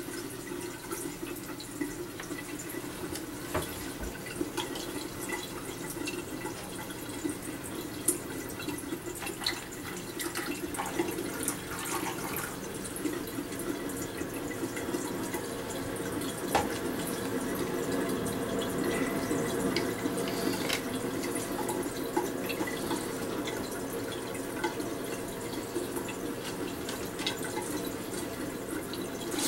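Bathroom sink tap running steadily, with scattered clicks and knocks from a bottle and a plastic cup being handled on the counter.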